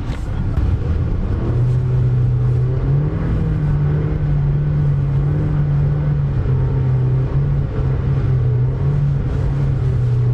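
Car engine running as the car drives off, heard from inside the cabin; its steady hum steps up in pitch about three seconds in and then holds.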